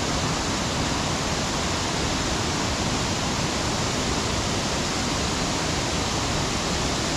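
Waterfall rushing: a steady, even roar of water falling about 15 to 20 feet over rocks into a splash pool.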